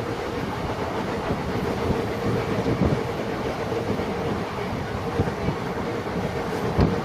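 Train running on the rails: a steady rumble with irregular clacks of the wheels over the rail joints and a steady hum.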